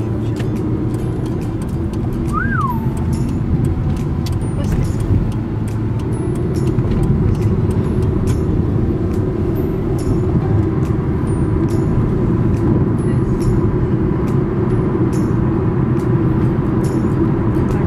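Steady road and engine rumble of a car driving in city traffic, heard from inside the cabin. A short chirp rises and falls about two and a half seconds in.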